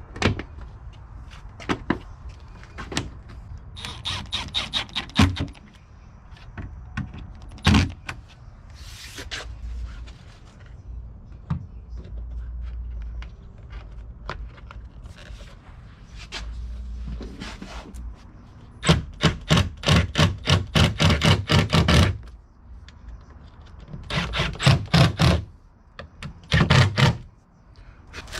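Rapid, evenly spaced metallic clicking in several bursts, about six to seven clicks a second, the longest lasting about three seconds; single knocks between the bursts and a short hiss about nine seconds in.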